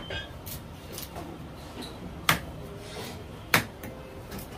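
Large knife slicing pieces of pomfret and striking the wooden chopping block: a few light taps and two sharp knocks in the middle, about a second and a quarter apart.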